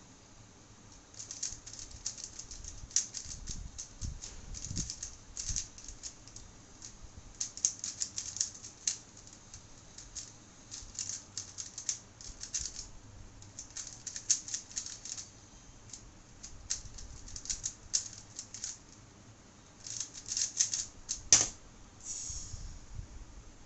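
A 3x3 speedcube being turned rapidly by hand: fast clicking of plastic layers in bursts with short pauses between them. About 21 seconds in comes one loud, sharp keyboard tap as the solve ends and the timer is stopped.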